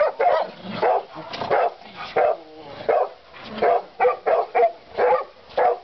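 Dogs giving short, repeated excited barks and yelps, about two a second, in an excited greeting, with a brief whine a little past the middle.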